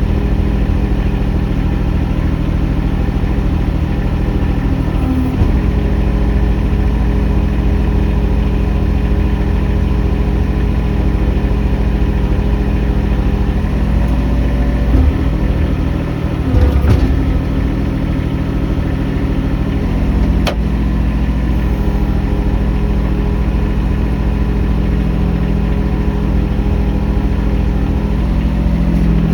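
Mini excavator's engine running steadily, heard from inside the enclosed cab, its pitch shifting briefly a few times as the machine works. A single sharp click about twenty seconds in.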